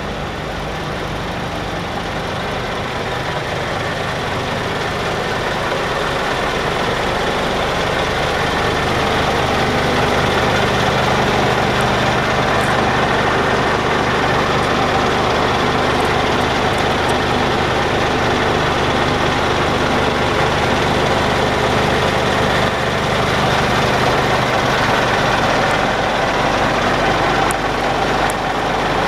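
Scania P400 tipper's six-cylinder diesel engine running steadily while the hydraulic ram raises the steel tipper body. The sound grows louder over the first ten seconds or so, then holds steady.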